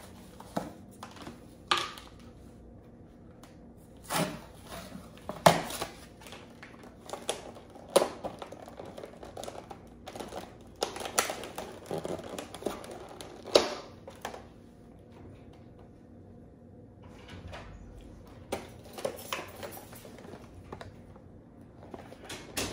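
Irregular clicks, taps and short rustles of small items being handled by hand, with a quieter stretch of a few seconds past the middle.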